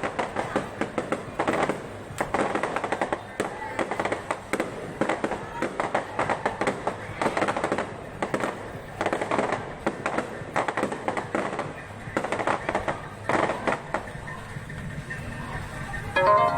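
Aerial fireworks going off in a rapid, irregular string of bangs and crackles.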